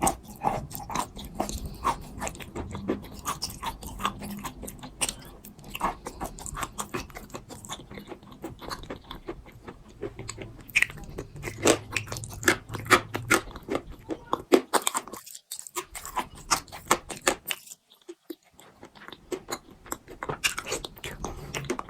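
Pieces of soft clay crunching as they are crushed: a quick run of sharp crackles, broken by two short pauses in the second half.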